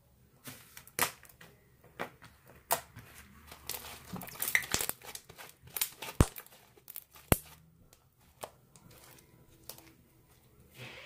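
Slime being poked, squeezed and stretched by hand, giving a string of sharp, wet clicks and pops that come thickest about four to five seconds in and thin out after about eight seconds.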